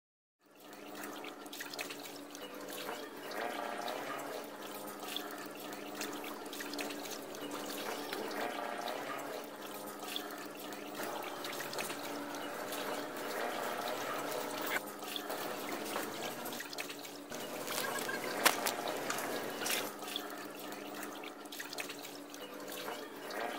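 Water sloshing and trickling against a dock and ladder, over a steady low hum, with a single sharp knock about three-quarters of the way through.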